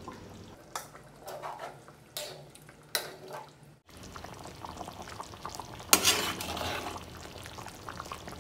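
Metal spatula stirring a wok of curry: a few short scrapes and knocks against the pan, then a louder stretch of stirring starting about six seconds in.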